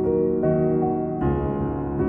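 Slowed-down solo piano cover playing soft sustained notes and chords, with a fuller new chord struck a little over a second in.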